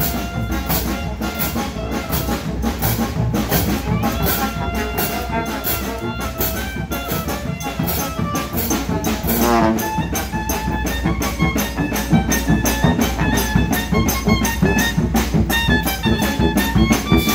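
A street brass band playing a lively tune: sousaphone bass line, trombone and saxophone, over a steady beat.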